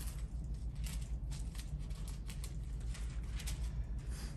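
Soft handling noise: a scatter of light clicks and rustles, several a second, over a steady low room hum.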